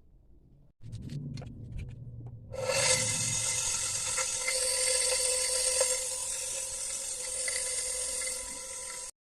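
Small electric blower switched on, its motor running with a steady high whine over a rush of air. It comes on about two and a half seconds in, after a low rumble and a few clicks, and cuts off abruptly near the end.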